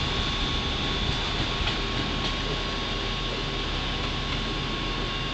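Steady rumble and hum of trains in a station, with a thin constant whine and a few faint ticks: a standing double-deck RER C electric train and a diesel railcar approaching in the distance.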